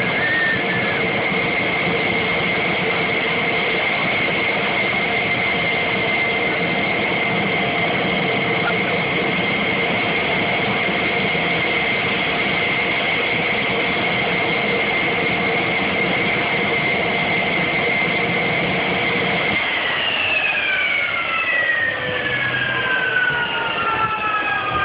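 F-16 fighter jet engine idling with a steady high whine, then about twenty seconds in it spools down with a falling whine as it is shut down.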